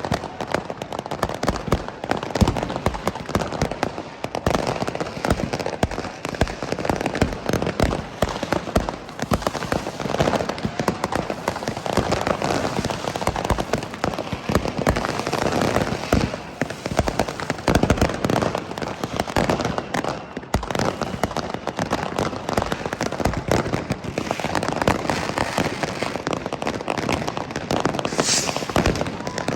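Fireworks: a dense, continuous barrage of bangs and crackling pops, many overlapping reports in quick succession.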